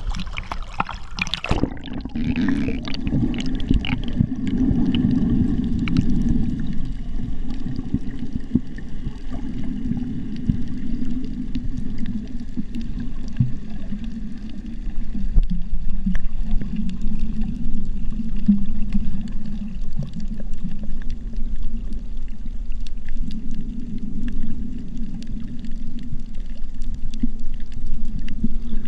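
Water sloshing and gurgling around a GoPro as it goes under, with a loud splashy surge in the first couple of seconds. After that comes a steady muffled underwater rumble with scattered faint clicks.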